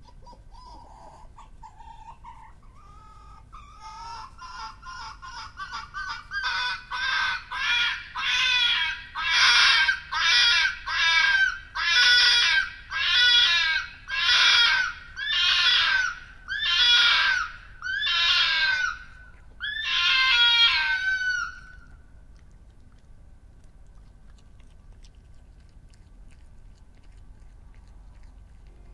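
Red fox vixen screaming: a series of calls, faint and short at first, then quickening and growing louder into about a dozen long screams roughly one a second. They stop about three-quarters of the way through, the last one the longest. The uploader takes the screaming for part of the pair's mating activity.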